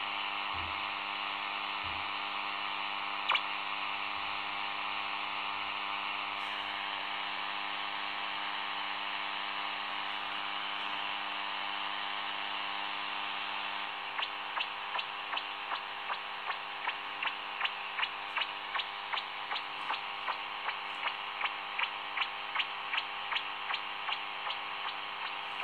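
Shortwave radio static from a smartphone SDR receiver in AM mode: a steady hiss with a faint hum underneath. About halfway through, a regular ticking starts, two to three ticks a second.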